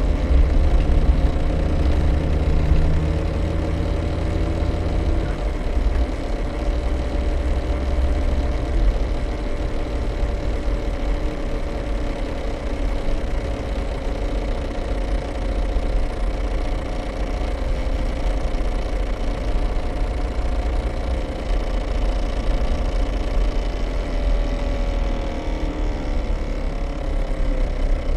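Daihatsu Terios Kid on the move, with low road and drivetrain rumble and a steady tone through it that sinks in pitch near the end. A lower tone drops away about five seconds in. The noise comes in any gear while moving but not when the engine is revved standing still, which the owner suspects points to a drive shaft or the front differential.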